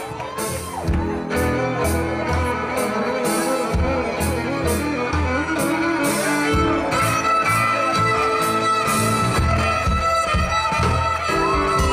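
Live band playing an instrumental passage with fiddle and guitar over bass and drums. A high note is held through the second half.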